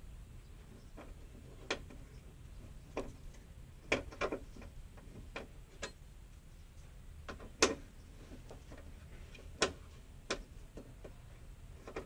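Steel Torx L-key on a door-lock screw in a car door's sheet-steel shut face, clicking as it is turned and re-seated: about ten irregular sharp metallic clicks over a low steady hum.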